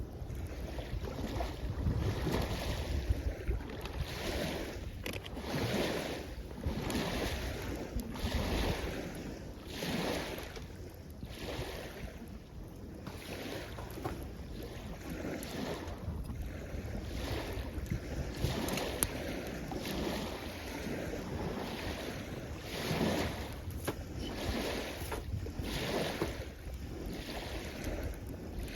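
Small waves washing up the shore in repeated rushes, one every second or two, with wind rumbling on the microphone and an occasional faint pop from a campfire.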